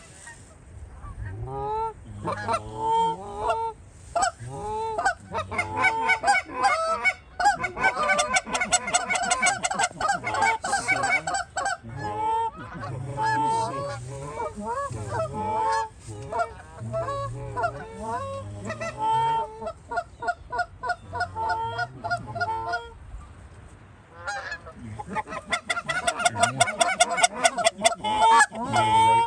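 A flock of Canada geese honking, many calls overlapping. The honking starts about a second in and is thickest in two loud runs of rapid calls, one in the first half and one near the end, with a short lull between.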